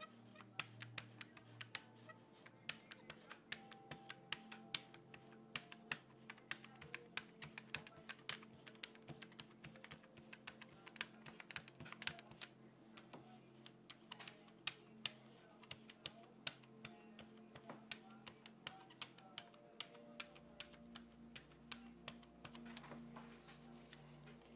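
Rubber brayer rolling back and forth through tacky acrylic paint on a gel printing plate, making a run of sharp, irregular clicks and ticks, several a second.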